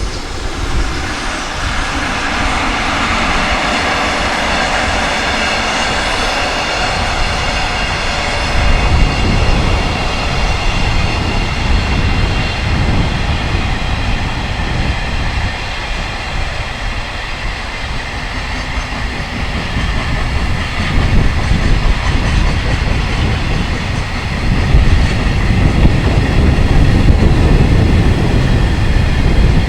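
Freight train hauled by an electric locomotive passing close by. Steady high tones come first, then from about nine seconds in the wagons rumble and clatter over the rail joints, growing louder near the end.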